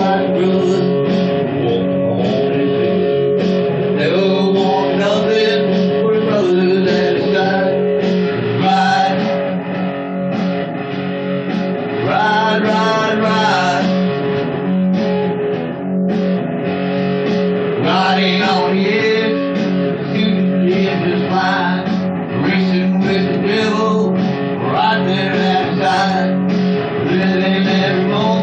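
Guitar music: a song with steady sustained guitar chords and melodic lines over them.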